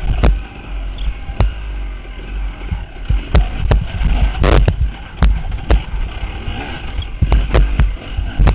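Dirt bike ridden hard over a rough woods trail: a low, steady engine rumble under a string of irregular sharp knocks and thumps from the bike and its bar-mounted camera jolting over ruts, coming thicker in the second half.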